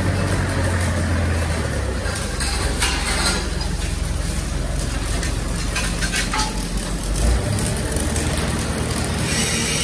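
Electric arc welding on a steel excavator bucket, a continuous crackling hiss, over a steady low machine hum that weakens about seven seconds in.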